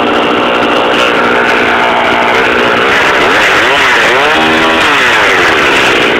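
1972 Homelite two-stroke chainsaw running: it idles steadily, is revved up and back down a couple of times around the middle, then settles back to idle.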